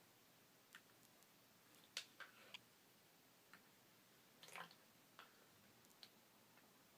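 Faint scattered clicks and soft wet squishes of a plastic spoon scraping a bowl of mashed banana baby food and feeding it into a Baby Alive doll's plastic mouth. The clearest clicks come about two seconds in and about four and a half seconds in.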